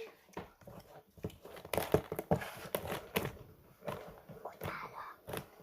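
Scattered light knocks, clicks and rustles at an irregular pace: objects being handled and set down.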